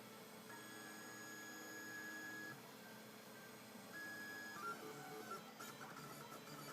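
Prusa i3-style RepRap 3D printer's stepper motors whining with steady tones while it prints, the pitch changing from move to move. A long held tone starts about half a second in, a shorter one comes about four seconds in, and quicker rattling moves follow near the end.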